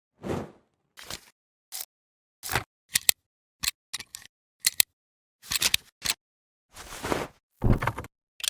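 A run of short separate sound effects, about a dozen in eight seconds, each cut off into silence: sharp mechanical clicks alternating with brief noisy swishes, like camera shutter and film-overlay transition sounds.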